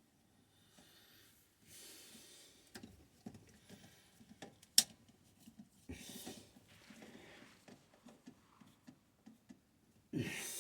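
Quiet handling noise from working on a pressure switch's wiring: small knocks and rustles, a few soft hissy rushes, and one sharp click a little under five seconds in.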